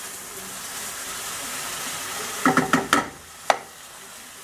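Mashed potato sizzling steadily in a hot oiled frying pan, with a metal utensil scraping several times and then knocking once against the cookware a little past halfway.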